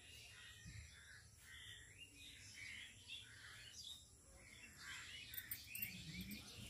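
Faint birds chirping and calling, many short calls overlapping, with a few faint clicks near the end.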